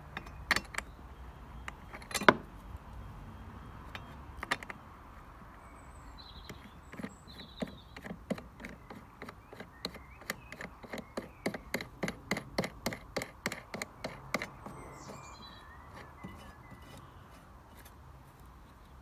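Small metal clicks and knocks as a rotary mower blade is seated on its spindle and the centre nut is turned on by hand, with one sharp knock about two seconds in and a run of rapid light clicks, about four a second, in the middle. Birds chirp faintly now and then.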